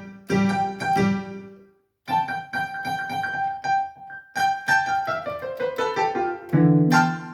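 Yamaha PSR-530 electronic keyboard played in a piano-like voice. There are a few notes and a brief pause, then repeated notes, then a descending run that ends on a loud low chord ringing out near the end.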